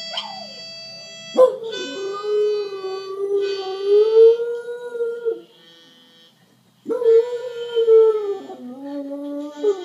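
German Spitz dog howling: two long howls, the first about four seconds and the second about three, each starting with a sudden rise in pitch. Harmonica music plays underneath, and the dog is howling along to it.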